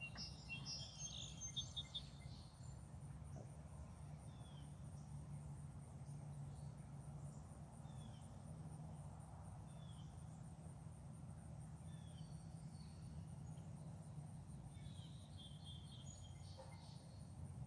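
Wild songbirds singing faintly: a short burst of high twittering song near the start and again near the end, with a single short call repeated about every two seconds in between, over a low steady rumble.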